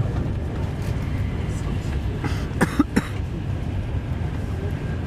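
Steady low rumble of an InterCity 125 (HST) coach running at speed, its wheels rolling on the rails. A quick cluster of three or four sharp knocks comes about two and a half to three seconds in.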